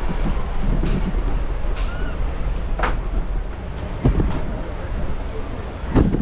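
Wind rumbling steadily on the microphone, with a few sharp knocks.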